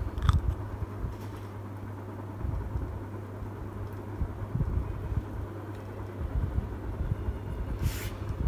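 A steady low hum under irregular low bumps and rustles of handling, with a sharp click just after the start and a brief hiss near the end.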